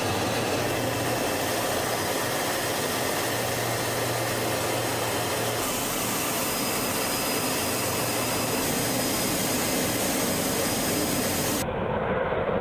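Steady jet aircraft engine noise, an even rushing sound with no tune. It changes abruptly about six seconds in, and again near the end, where the high end drops away and it turns duller.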